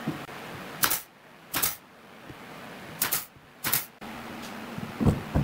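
Four short, sharp hissing snaps in two pairs, then a dull knock near the end.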